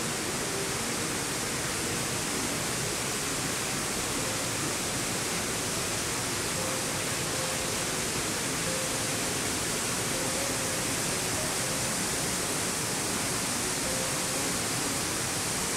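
Steady rushing hiss of falling water from the conservatory's indoor waterfalls.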